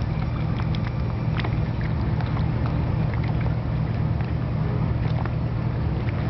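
Steady low engine hum, like a motor idling, with scattered faint clicks and small water sounds over it.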